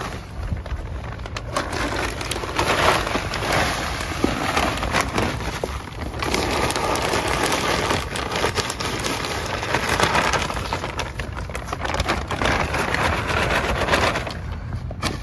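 Crackling, rustling noise of potting soil being handled, scooped and pressed into plant pots by hand, with many small clicks and scrapes.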